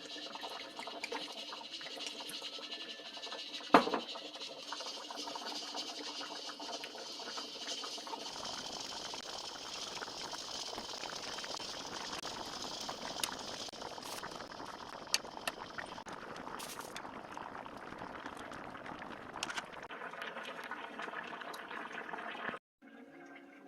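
A steady watery hiss from liquid in the kitchen, with one sharp knock about four seconds in. It cuts off suddenly near the end.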